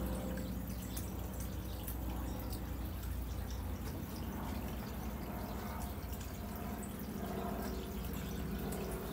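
Steady low background rumble with scattered faint clicks and ticks.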